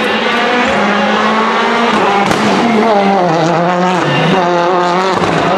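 Citroen DS3 WRC rally car's 1.6-litre turbocharged four-cylinder engine revving hard, its pitch climbing and dropping several times through gear changes and lifts, with a sharp crack about two seconds in.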